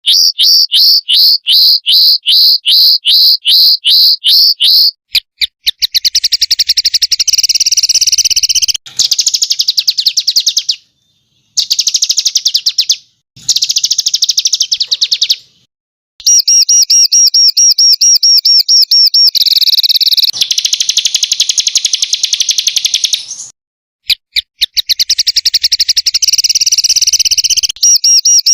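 Songbird calls for masteran song-tutoring, loud and high-pitched, full of 'tembakan' rapid-fire phrases. A series of sharp repeated notes, about two or three a second, gives way to dense rapid trills. These are cut off abruptly by silences several times, as between spliced recordings.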